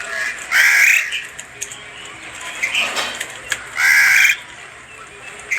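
Two loud, harsh bird calls, each about half a second long and spaced about three seconds apart, with another starting right at the end; faint ticks between them.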